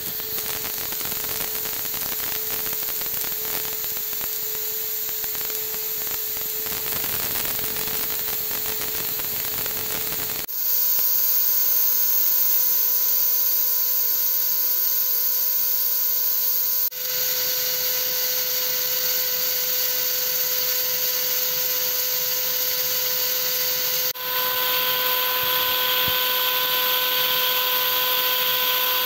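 CNC engraving machine's high-speed spindle running while a fine cutter mills a pattern into a metal die plate: a steady whine over a hiss of cutting. The whine shifts to a new pitch abruptly about ten seconds in, and the sound changes again twice more.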